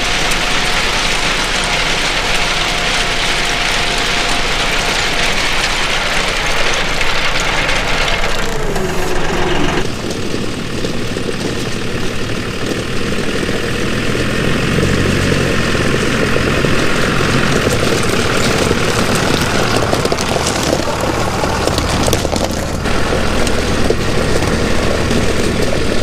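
John Deere 5055E tractor's three-cylinder diesel engine running steadily while the tractor works a gravel driveway with a grading scraper. The engine note shifts about ten seconds in and then holds steady.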